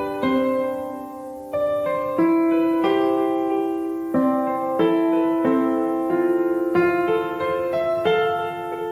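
Background piano music: an unhurried melody over chords, each note struck and left to ring.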